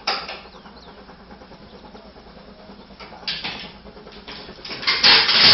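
Exhaust of the steam locomotive Oliver Cromwell, a BR Britannia-class 4-6-2, heard as a few uneven bursts of chuffing over a low background. The loudest burst comes near the end.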